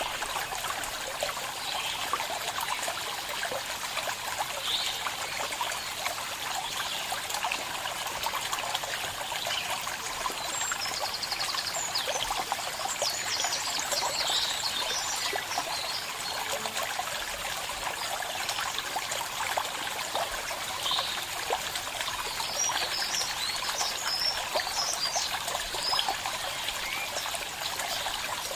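A small stream trickling and burbling steadily over stones, with a few short, high bird chirps scattered through it.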